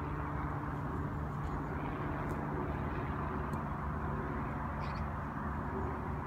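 Steady low rumble of distant road traffic, even in level throughout.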